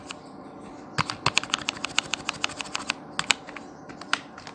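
Computer keyboard keys tapped in a quick run of clicks, about ten a second, for roughly two seconds, then a few single taps near the end.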